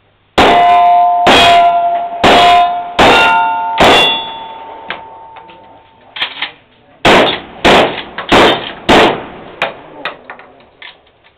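Rapid pistol fire from a 1911-style .45 ACP semi-automatic at steel targets: five shots about a second apart, each followed by a clear metallic ring from the struck plate. After a pause of about three seconds come four quicker shots and a few fainter pops.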